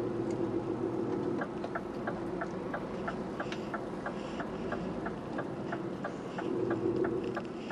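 HGV turn indicator ticking inside the cab, about three ticks a second, starting about a second and a half in and stopping near the end, over the steady drone of the lorry's engine.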